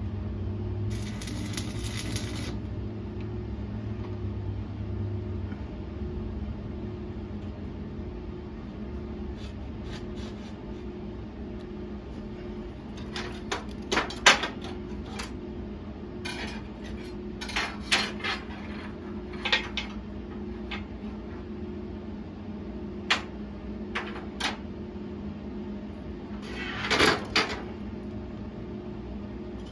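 Pieces of steel clanking and clinking as they are handled and set down, in irregular knocks with a longer rattle near the end, over a steady electrical hum.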